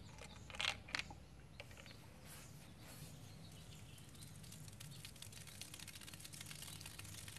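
A couple of short clicks about a second in as Mentos are dropped into a 2-liter soda bottle, followed by no eruption, only faint outdoor background with birds chirping.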